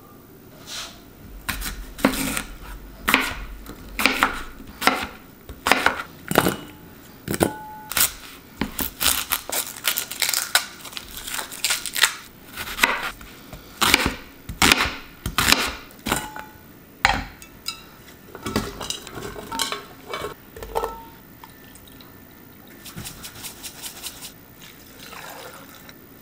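Chef's knife slicing through an onion and knocking down on a cutting board, a long series of irregular sharp chops. The last few seconds are quieter, with only soft handling sounds.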